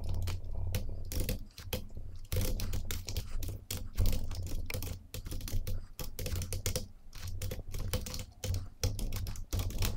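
Typing on a computer keyboard: a quick, uneven run of keystrokes, with a steady low hum underneath.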